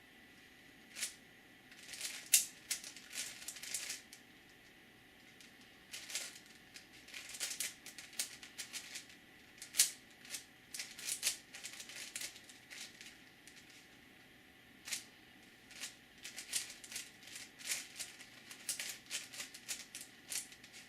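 A 5x5x5 Rubik's cube being turned by hand: quick runs of clicking, rattling layer turns separated by short pauses.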